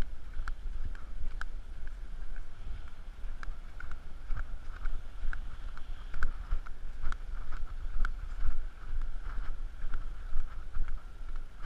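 Wind rumbling over a GoPro's microphone, muffled inside its waterproof housing, with light knocks of footsteps on grass about once a second as the camera is carried along.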